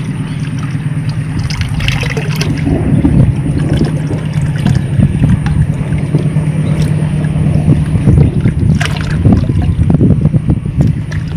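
A steady low hum and wind rumbling on the microphone, with water trickling and splashing a few times as small fish and water are poured from a plastic bucket into a ditch.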